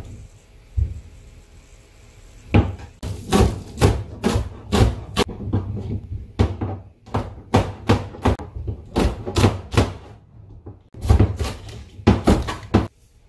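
Kitchen knife chopping red chili peppers and green onion on a plastic cutting board: a quick run of sharp knocks, several a second, with a short pause about ten seconds in.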